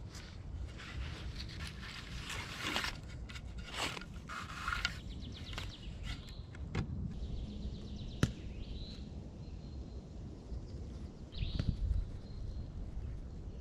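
Thin cord being pulled taut and wrapped around logs by hand: irregular rasps and rustles of cord, sleeves and dry leaves, with a single sharp click about eight seconds in. A few short bird chirps come in the second half.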